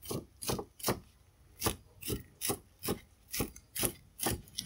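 Cleaver slicing green onions on a round wooden chopping block: steady knife strikes on the wood, about two a second.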